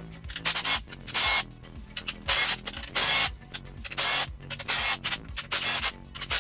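Hand ratchet wrench turning a bolt: a short burst of ratcheting clicks on each back-stroke, repeating roughly once a second.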